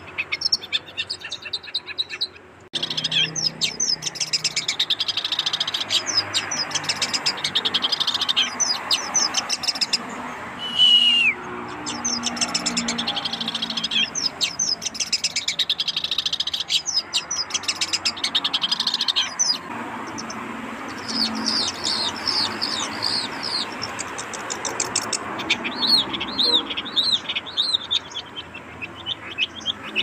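Long-tailed shrike (cendet) singing a rapid, continuous twittering 'mriwik' song of quick high chirps, with a loud falling whistle about eleven seconds in. The song breaks off briefly near the start and thins out for a few seconds past the middle.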